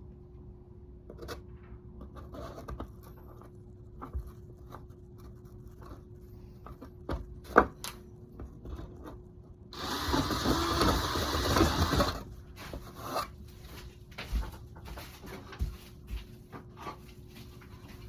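Hand-tool work in a surfboard's leash-plug hole: scattered scrapes and small clicks as the foam and wooden stringer are trimmed, with a sharp click partway through and a rough scraping stretch of about two seconds near the middle, the loudest part.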